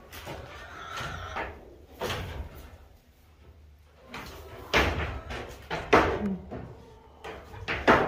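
A young goat jumping at and over a stall gate: a series of sharp bangs and knocks about a second or two apart.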